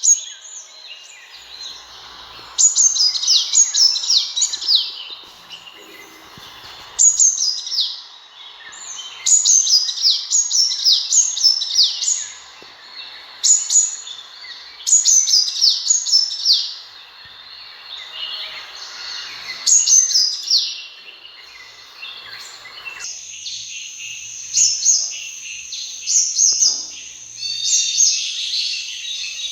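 Sunbird calling: bursts of rapid, high-pitched chirps, each note sweeping downward, repeated every few seconds. About 23 s in, the background hiss drops away and the calls go on as a steadier high trill with chirps over it.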